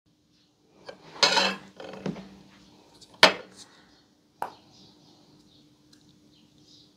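Small painting tools handled on a hard tabletop: a short rattling scrape about a second in, then a sharp click a little after three seconds and a lighter one about a second later, as a small paint tube is picked up and squeezed.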